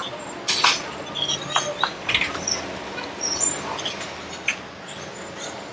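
Steel spoon clinking and scraping in small stainless-steel bowls, mixed with chewing and mouth sounds: several sharp clinks, the first about half a second in.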